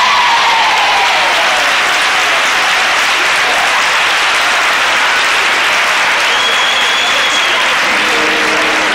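Audience applauding, steady and loud, with voices calling out in the crowd.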